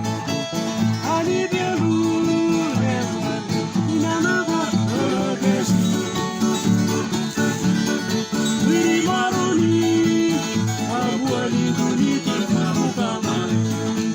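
Papua New Guinea string band music: plucked and strummed acoustic guitars keeping a steady beat, with a melody line gliding over them.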